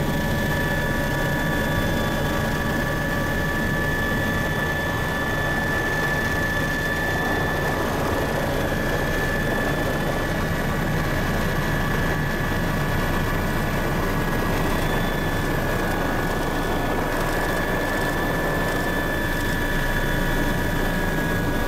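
Helicopter cabin noise in flight: a steady engine and rotor drone with a constant high whine over it.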